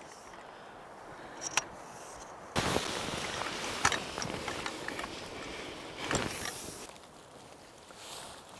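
A few light clicks, then from about two and a half seconds in a steady rushing noise of wind on an open field, easing off near the end.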